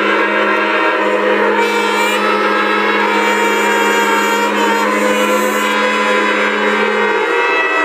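Shofars (ram's-horn trumpets) blown together in one long held blast, several horns sounding at different pitches, the lowest note steady until it wavers and breaks near the end.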